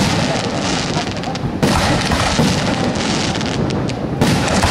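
A San Severo–style ground fireworks battery (batteria) of firecrackers going off in a dense, continuous barrage of rapid bangs that run together into one crackle. Heavier blasts break in about a second and a half in and again near the end.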